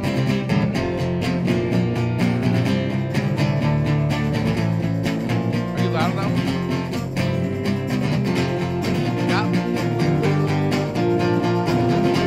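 Several amplified acoustic guitars strumming chords together in an instrumental band passage, with a steady strummed rhythm and a couple of brief rising slides.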